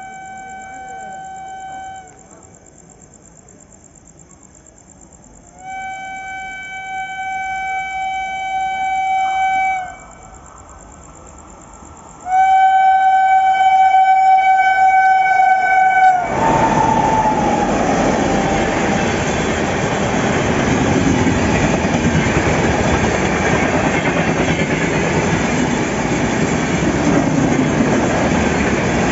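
The locomotive horn of the approaching Himsagar Express sounds three long, steady blasts, each louder than the last. Then the train runs through the station at speed, a loud steady rush of wheels and passenger coaches passing close by.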